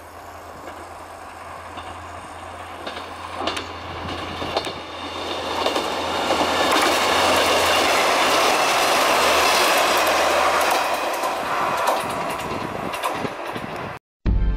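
Kanto Railway KiHa 2100-series two-car diesel railcar approaching and passing close by, its engine and wheels on the rails swelling to their loudest in the middle and then fading away, with a few clicks of wheels over rail joints. The sound cuts off suddenly near the end.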